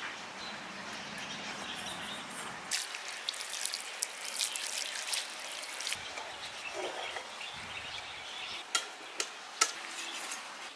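Knife scraping and cutting at a whole raw red snapper as it is cleaned: a crackly scratching with scattered short ticks, and three sharper clicks near the end.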